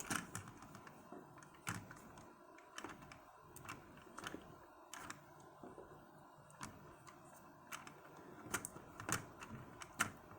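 Light plastic clicks and taps from hands handling small toy parts and a charging plug, scattered at irregular intervals.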